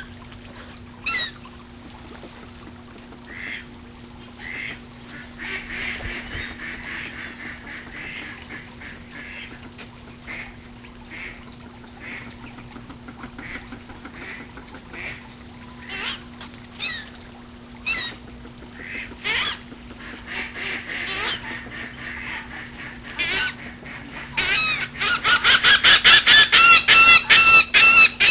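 Birds squawking in scattered short calls, then a dense run of rapid, loud squawks near the end, over a steady low hum.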